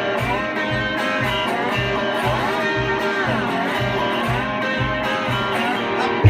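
Music: a country guitar instrumental break between sung verses, with a steady bass beat about twice a second and lead notes that bend up and down in pitch.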